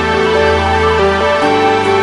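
Background music: held chords over a bass line, with the notes changing every half second or so.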